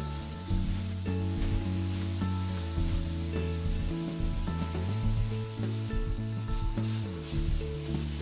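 A steady rubbing, scraping hiss as a stone dental cast is worked by hand with a small tool, over background music.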